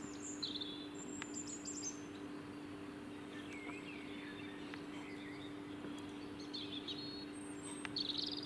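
Birds chirping and calling now and then, in short high notes, the louder ones near the start and near the end, over a steady low hum.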